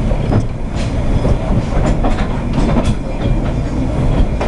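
Narrow-gauge railway carriage running along the track, with a steady low rumble and irregular clicks of the wheels over rail joints.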